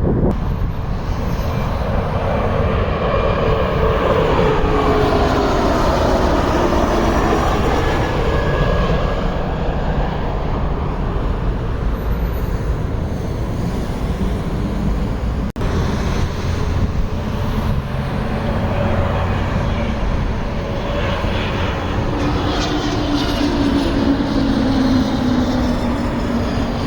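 Jet airliner engines passing on landing approach: a loud, steady rush with an engine whine that falls in pitch as the aircraft goes by, and a second falling whine near the end.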